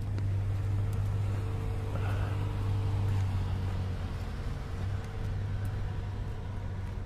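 A motor running steadily with a low hum and a few fainter steady tones above it.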